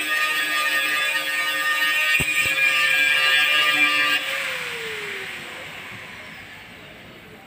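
Handheld power sander whining steadily against a car door panel, with two brief clicks a little after two seconds. About four seconds in it is switched off and its pitch slides down as it spins down.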